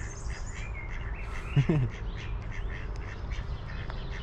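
Mallards on a grass course: a brief low quack with falling pitch about one and a half seconds in, over small birds chirping in the background and a steady low outdoor rumble.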